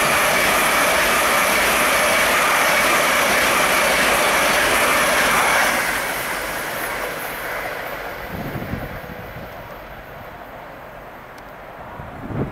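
A Great Western Railway Hitachi Intercity Express train passes close at speed, a loud, steady rush of wheels on rail and air. About six seconds in it drops away as the train clears and fades to a distant rumble, with wind buffeting the microphone near the end.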